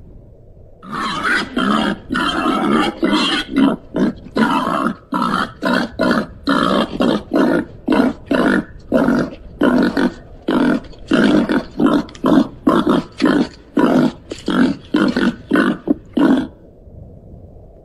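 Babirusa grunting: one longer drawn-out grunt starting about a second in, then a quick run of short grunts about two a second that stops near the end.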